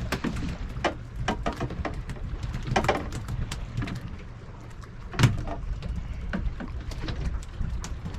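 A low steady rumble aboard a small fishing boat, under a run of short knocks, taps and rattles from fish and tackle being handled on deck. The loudest knock comes about five seconds in.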